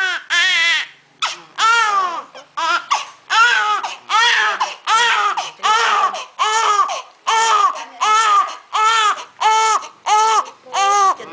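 Newborn baby crying in a steady run of short, rhythmic wails, with a brief pause about a second in.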